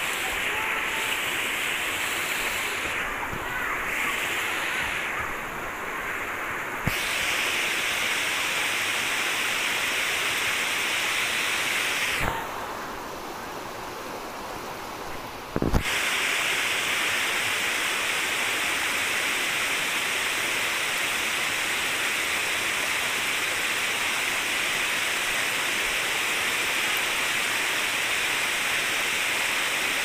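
Stream water cascading over rocks: a steady rushing of water that drops quieter twice, with a sharp click where each quieter stretch ends.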